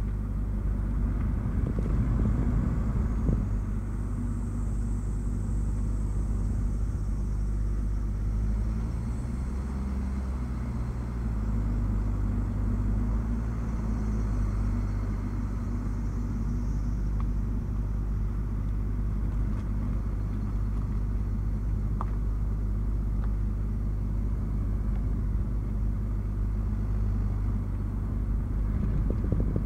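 Nissan Note e-Power driving on a winding road: a steady low rumble of drivetrain and road noise, with a faint high whine about a third of the way in.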